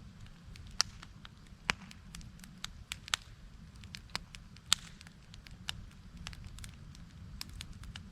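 Scattered sharp crackles and clicks at an uneven pace, a few louder snaps among them, over a steady low rumble.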